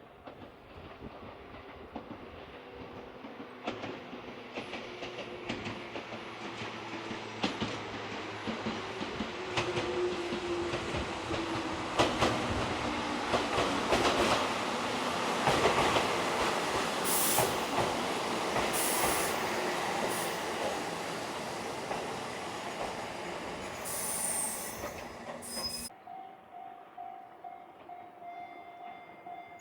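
Hokuriku Railroad 7000 series electric train approaching and running past, getting steadily louder, with wheels clicking over rail joints and high wheel squeals in the second half. It cuts off abruptly near the end, leaving a quieter repeating bell-like ding.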